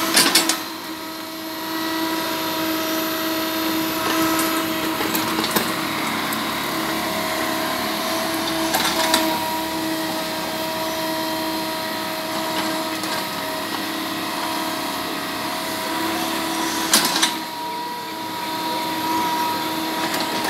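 IHI mini excavator running steadily with a whine from its engine and hydraulics, and a few sharp knocks as the bucket digs into soil and stones.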